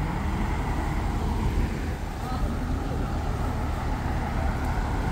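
Cars driving past on a city street: steady tyre and engine noise.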